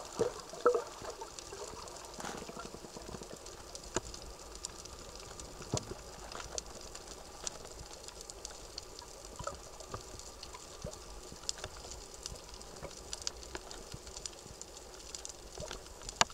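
Underwater reef ambience: a steady hiss scattered with sharp clicks, with a few bubbling gurgles in the first second.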